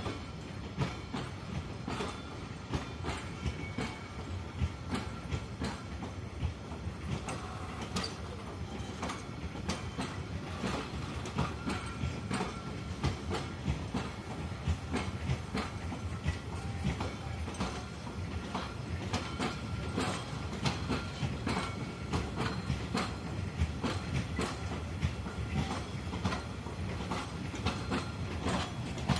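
Train wheels rolling past over the rails, with dense, irregular clicks over a continuous rumble.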